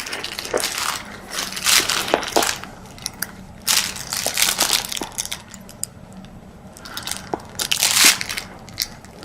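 An American bulldog chewing and crunching on a toy, in irregular bursts of crunching with sharp clicks.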